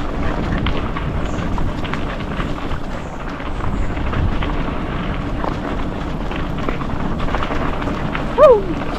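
Mountain bike rolling fast down a dirt trail: wind buffets the microphone, with the tyres' rumble and small rattles and knocks from the bike. A short falling vocal cry comes near the end.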